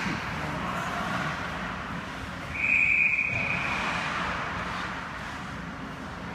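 Referee's whistle blown in one long, steady blast about two and a half seconds in, over the even hiss of the ice rink; it signals a stoppage in play.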